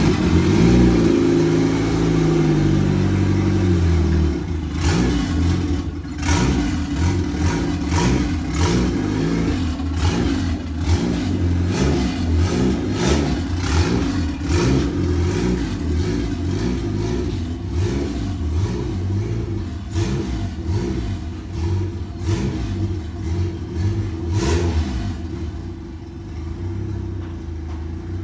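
Turbocharged Honda engine running on a cold start, its pitch stepping up and down in the first few seconds, then running on with frequent sharp clicks and clatter over the steady running, a little quieter near the end.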